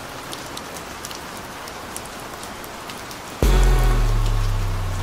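Steady rain with scattered raindrop ticks, heard alone between songs. About three and a half seconds in, music starts abruptly with a heavy bass note that becomes the loudest sound.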